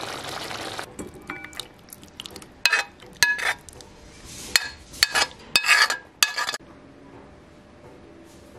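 Chicken curry hissing as it simmers in the pot for about the first second. Then a serving spoon clinks and scrapes against a ceramic bowl about ten times as the curry is dished up, stopping about two seconds before the end.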